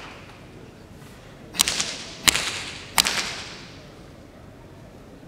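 Three sharp open-hand slaps on a karateka's bare back and shoulders, about two-thirds of a second apart, echoing in a large hall: Sanchin shime, the sensei striking to test the student's tensed stance.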